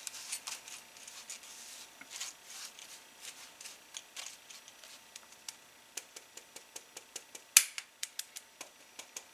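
Silicone spatula working dry cake mix through a stainless-steel mesh sieve resting on a metal bowl: soft scraping and scratching on the mesh, then light metallic clicks and taps about four a second over the last few seconds, one of them noticeably louder.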